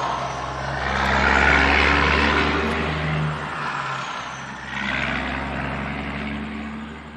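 An engine running with a steady low hum, under a rush of noise that swells and fades twice.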